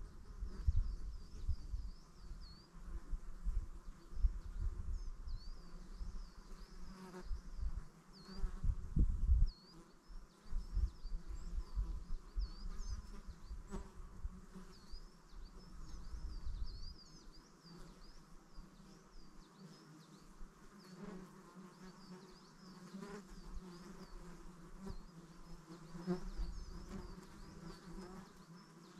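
Open-air ambience: an insect buzzing, with quick, repeated high chirps throughout. Low gusts of wind rumble on the microphone for about the first half, then die away.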